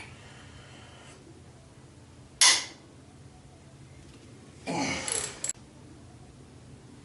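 Two short, strained grunts from a man, about two and a half seconds and five seconds in, as he forces a ratchet to break tight cylinder-head bolts loose.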